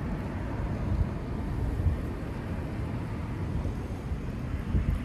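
Wind rumbling and buffeting on the microphone in uneven low gusts.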